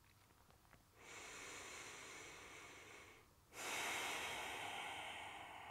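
A woman breathing slowly and deeply through her nose during relaxation. One long breath starts about a second in, followed by a short pause, then a louder, longer breath that slowly fades.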